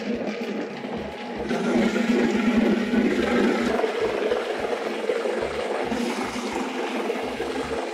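Industrial blender running steadily, churning a wet mash of moistened feed, cooked chicken, vegetables, egg and water, with a steady motor hum under the sloshing of the liquid.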